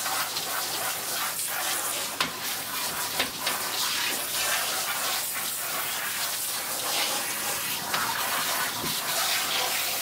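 Water spraying steadily from a handheld shower sprayer onto a long-haired cat's coat in a bathtub, with water splashing as the fur is soaked.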